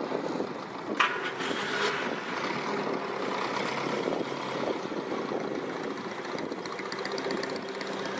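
MG M-type Midget's small 847 cc four-cylinder engine running steadily as the open two-seater pulls away and drives off across grass. A single sharp click about a second in.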